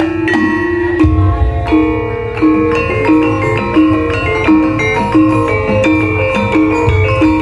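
Javanese gamelan ensemble playing: bronze metallophones strike a repeating melodic figure in a steady beat, with a low pulsing bass layer that comes in about a second in.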